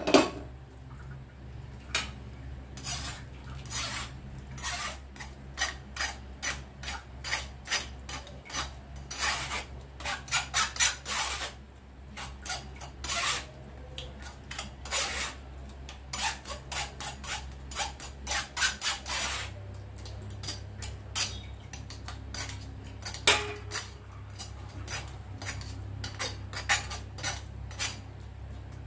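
An aluminium pressure cooker knocks down onto the gas stove once at the start. Then a steel spoon scrapes and clinks against a stainless-steel mesh strainer in many short, irregular strokes, rubbing soup through and pressing the whole spices back.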